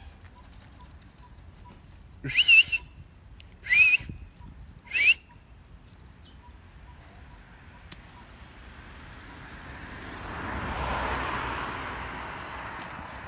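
Three short, loud whistles about a second and a half apart, each sliding upward in pitch. Later a broad rush of noise swells and fades.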